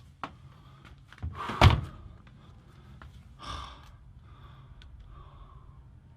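A few light knocks and clicks, with one loud thump about one and a half seconds in and a short rustle a couple of seconds later, over a low steady hum.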